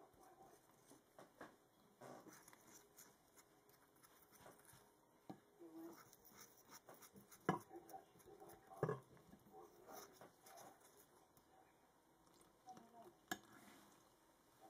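Faint stirring of batter into flour in a glass mixing bowl: soft scraping from the utensil, with a few sharper knocks of it against the glass, the loudest about halfway through and again near the end.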